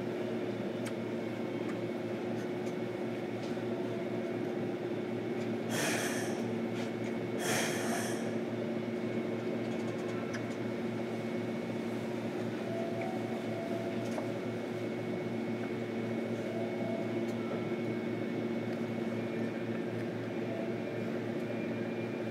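Steady hum inside a JR Kyushu 305 series electric train car, with fixed tones and no rise or fall in pitch. Two short hisses come about six and seven and a half seconds in.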